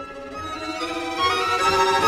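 Orchestral music led by violins, swelling in loudness as the notes climb.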